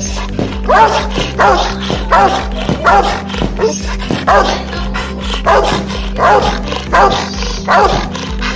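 Rottweiler barking over and over, about a dozen loud barks each half second or so.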